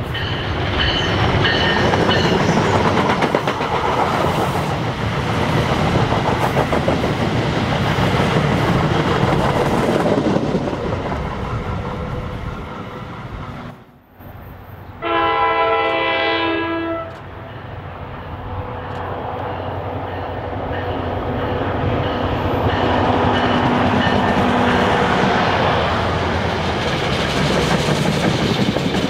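NJ Transit ALP-45DP locomotive and its coaches passing close by with a loud rumble and wheel noise. After a cut, a distant train sounds one horn blast of about two seconds, then its passenger coaches roll past with clickety-clack over the rail joints.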